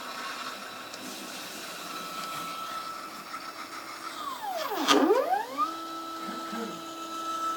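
Stepper motors of a homemade mini CNC plotter whining steadily as the machine draws, with the pitch sweeping down and back up about five seconds in, where the sound is loudest.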